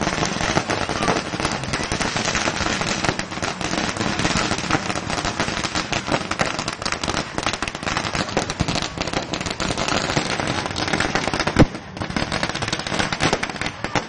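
Firecrackers bursting in a dense, rapid, unbroken crackle, with one much louder bang about eleven and a half seconds in; the crackle drops away right at the end.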